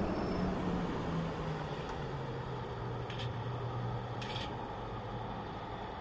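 Four coupled X 4300 'Caravelle' diesel railcars running, a broad rumble with an engine note that falls in pitch over the first few seconds and then holds low. Two brief high hisses come about three and four seconds in.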